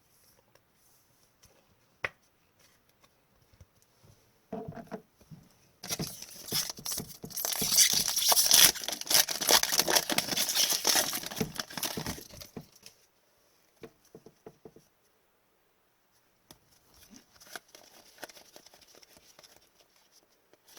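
Hockey card pack wrapper being torn open and crinkled. The crackling is loud and dense for about six seconds in the middle, with a sharp click about two seconds in and softer rustling near the end.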